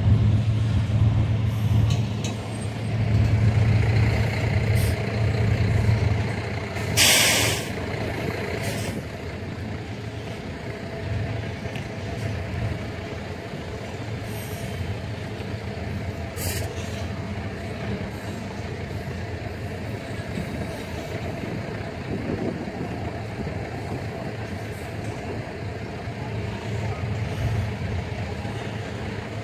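Freight train of tank cars rolling through a grade crossing, a steady rumble of wheels on rails that is louder for the first several seconds. A loud hiss cuts through about seven seconds in, and a shorter one near the middle.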